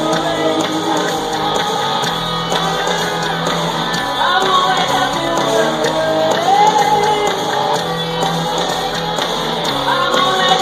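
Rock band playing live with electric guitar, heard from among the audience, with shouts and whoops from the crowd.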